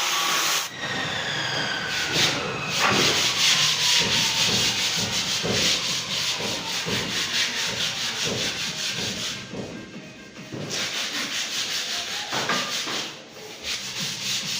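Narra wood being sanded, with rhythmic back-and-forth rubbing strokes about twice a second. A falling whine is heard in the first couple of seconds, and the sanding briefly drops away about ten seconds in.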